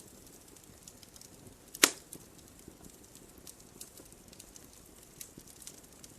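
Wood fire crackling, with scattered small snaps and one loud sharp pop about two seconds in.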